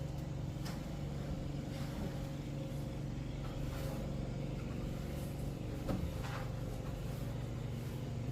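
A motor running steadily with an even hum, with a few faint clicks over it.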